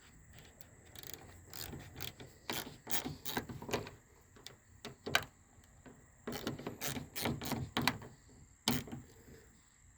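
Ratchet clicking in several short bursts, tightening the bolt that holds a car door lock cylinder in place.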